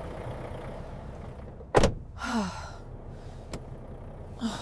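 A single heavy thunk about two seconds in, followed by a short falling squeak, over a low steady rumble; a faint click and another short falling squeak come near the end.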